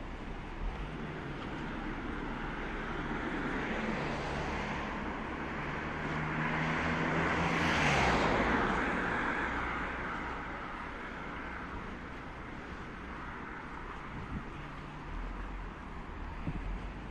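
A motor vehicle passes close by on the street: engine and tyre noise swell to a peak about eight seconds in, the engine pitch drops as it goes by, then it fades back into steady traffic hum.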